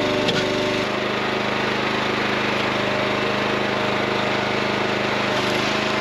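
Raven gas engine of a hydraulic log splitter running steadily while the ram splits rounds of dry white oak, with a brief crack of splitting wood early on. A higher note from the machine under load drops away about a second in and comes back near the end as the wedge drives into the next round.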